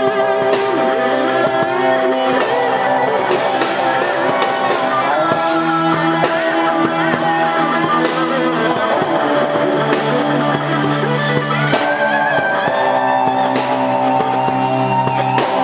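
Electric guitars playing an instrumental rock arrangement: a lead line with bent and sliding notes over held chords and bass notes, with a steady drum beat.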